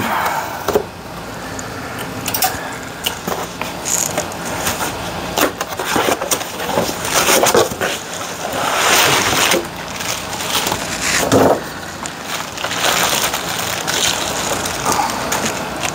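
A cardboard box being opened and unpacked: its tape slit with a razor blade, then the flaps, bubble wrap and plastic packaging rustling and crinkling in irregular bursts.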